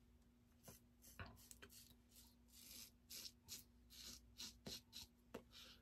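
Aylsworth Apex stainless steel double-edge safety razor scraping through lather and stubble in short, faint strokes. A few come singly, then a quick run of about ten in the second half.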